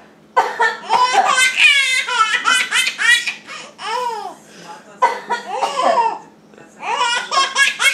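A baby laughing hard in repeated bursts of belly laughs and high squeals, with a couple of short pauses for breath.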